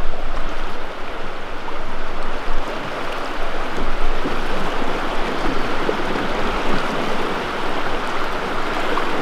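Fast, shallow river current rushing over rocks: a loud, steady rush of water.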